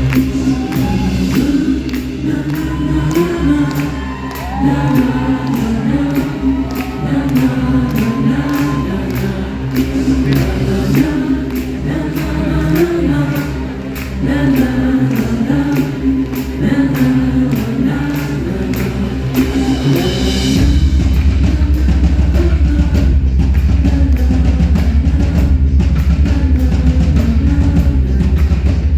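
Live band music: singing with vibrato over a steady ticking beat. About twenty seconds in, heavy bass and drums come in and the music gets louder.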